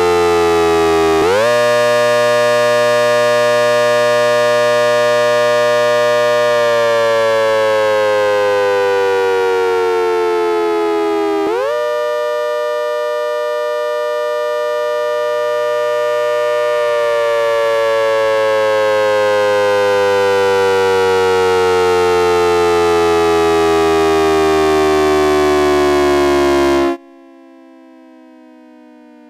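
ACA Hurricane H-130 MkII dual-tone siren running backwards, its 10-port tone dominant. It sounds a chord that jumps up sharply in pitch twice and slowly winds down in between, then cuts off abruptly near the end, leaving a much quieter, lower tone.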